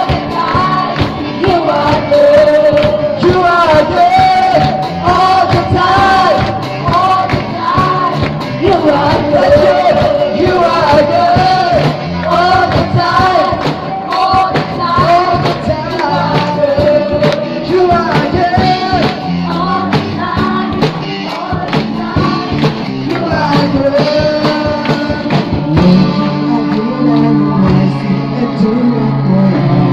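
Live worship band playing: several voices sing the melody together over guitars, keyboard and drums keeping a steady beat. Near the end the singing drops away and the instruments carry on.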